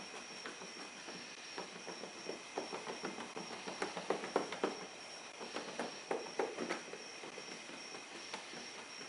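Cotton towel rubbed by hand over a plastic headlight lens to work in protectant: a run of quick, uneven rubbing strokes, busiest in the middle, over a faint steady high whine.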